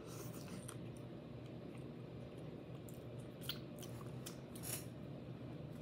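A person chewing a mouthful of pizza fries with the mouth closed: faint chewing with a few small sharp clicks, over a low steady hum.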